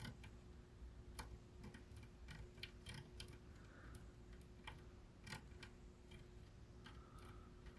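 Near silence with faint, irregular light clicks and taps, like small hand tools handled on a circuit board, over a faint steady hum.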